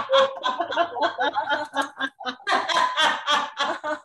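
Several people laughing together over a video call, overlapping bursts of laughter from many voices, in a laughter-yoga group laughing exercise. The laughter dips briefly about halfway through, then picks up louder again.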